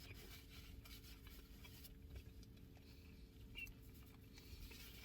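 Near silence: faint room tone with a steady low hum and a few faint soft ticks and rustles.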